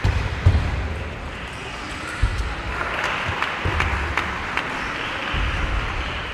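Table tennis rally: a quick run of sharp clicks from the celluloid ball striking bats and table, over the steady noise of a sports hall, with a few low thumps.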